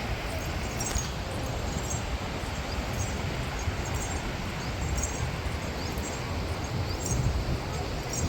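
Beach ambience with wind buffeting the microphone in an uneven low rumble over a steady wash of surf. Faint short ticks recur about once a second.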